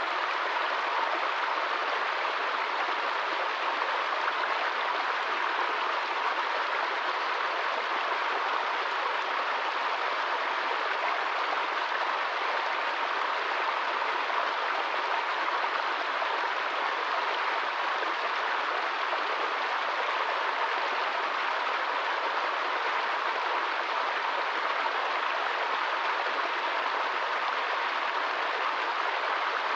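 Small forest stream splashing and cascading over rocks, a steady rush of running water.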